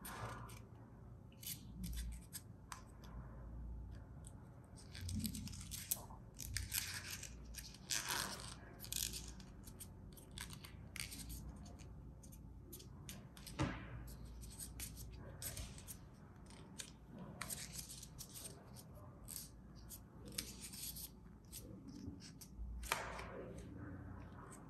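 Crisp dollar-bill paper crinkling and rustling in irregular little crackles as fingers fold and press creases into a small origami dog.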